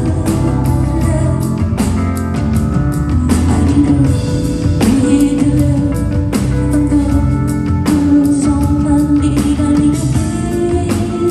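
Live rock music from a concert: a full band playing with regular drum hits and held melody notes, and a woman singing.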